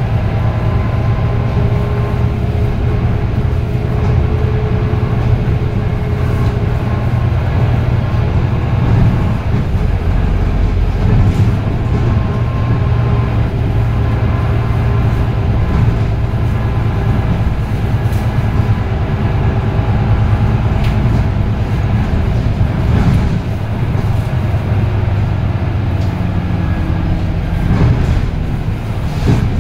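A Volvo B9TL bus's diesel engine and Voith automatic gearbox running under way, heard from inside the passenger cabin. There is a steady low engine rumble, with thin whining tones that slowly rise and fall as the bus changes speed.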